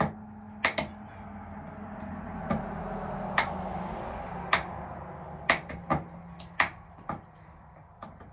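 Sharp clicks and light knocks of small metal tools and screws being handled, about ten in all, over a steady low hum. A soft rushing noise swells up and fades again in the middle few seconds.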